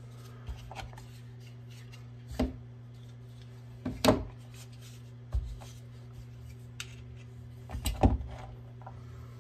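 Pistol parts being handled and set down on the bench: a few separate knocks and clicks, the loudest about four seconds in and another cluster near the end, over a steady low hum.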